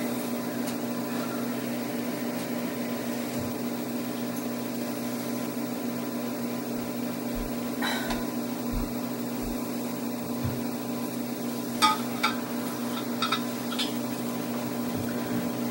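Steady low background hum, with a few faint short clicks and knocks about eight seconds in and again toward the end.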